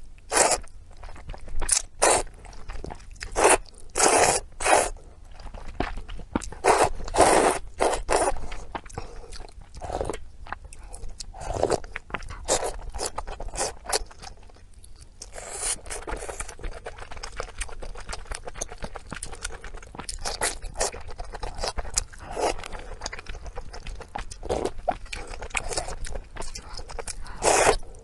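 Close-miked eating sounds of someone chewing and biting pork intestines: irregular short bites and mouth noises several times a second, louder in clusters in the first several seconds and again near the end.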